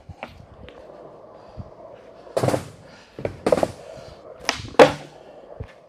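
Skateboard wheels rolling on a smooth concrete floor, with a series of sharp wooden clacks from the tail popping and the board landing as pop shove-its are tried, the loudest near the end.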